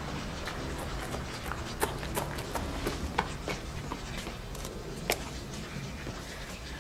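Footsteps hurrying on pavement: irregular sharp steps over a steady low background noise.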